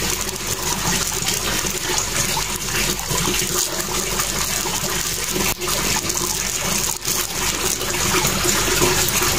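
Steady rush of running water, an even hiss with no let-up, dipping briefly twice in the second half.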